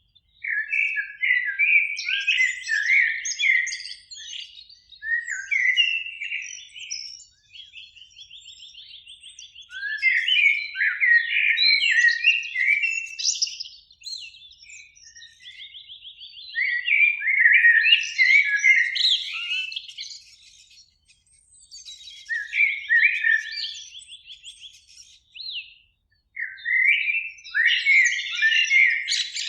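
Common blackbird singing: about five bouts of quick, sliding whistled phrases, each a few seconds long. A quieter, fast, even trill fills the gaps between the bouts.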